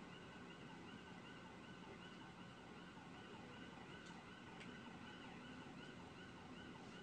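Faint police siren on a fast yelp, its pitch rising and falling rapidly over and over.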